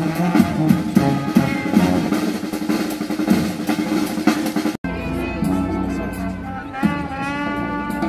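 Brass street band playing: saxophone, sousaphone and trumpets over a snare and bass drum beat. Just past halfway the sound breaks off abruptly and picks up on a different passage of long held brass notes over a low rumble.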